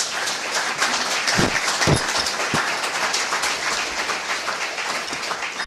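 Audience applauding: dense, steady clapping, with a few low thumps in the first half.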